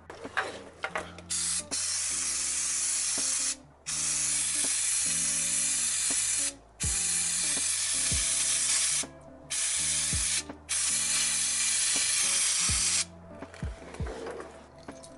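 Aerosol spray hissing in five long bursts of one to three seconds each, with short breaks between them, over background music.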